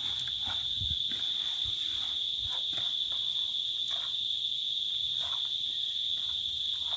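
Steady, unbroken high-pitched drone of insects such as crickets, with faint soft rustles and squelches of a hand mixing chopped seasoned vegetables in a plastic bowl.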